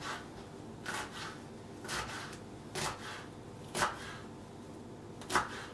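Kitchen knife chopping purple basil on a wooden cutting board: about six separate strokes of the blade on the board, unevenly spaced.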